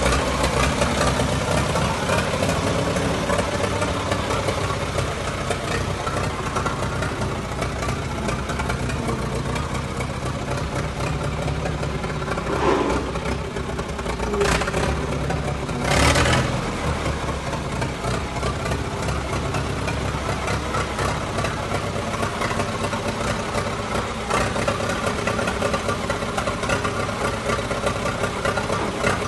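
Allis-Chalmers tractor engine idling steadily, with three short louder knocks or clatters about halfway through.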